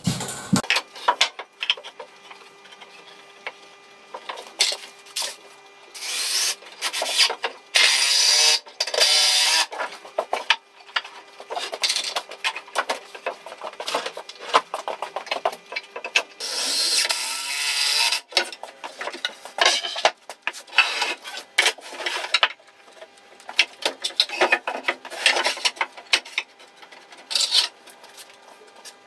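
Woodworking in a workshop: pine battens and tools knocked, slid and scraped on a bench, with several longer rasping, scraping bursts lasting a second or two.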